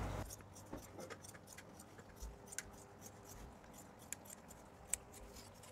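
Scissors cutting through denim: a string of faint, irregular snips and clicks.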